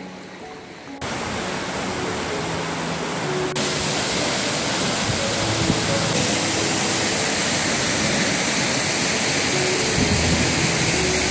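Rushing water of a mountain waterfall and stream: a steady, loud rush that cuts in suddenly about a second in and grows louder about three and a half seconds in, with soft background music beneath.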